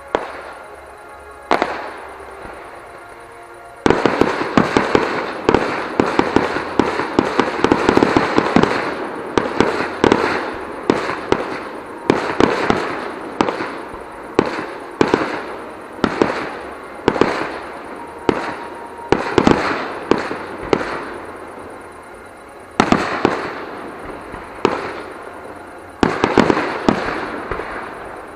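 Aerial firework shells bursting: two single bangs, then from about four seconds in a dense barrage of rapid bangs and crackles, going on in volleys with a short lull near the end.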